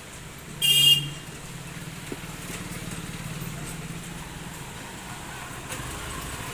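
Steady low background hum, with one short, loud, high-pitched tone a little under a second in and a small click about two seconds in.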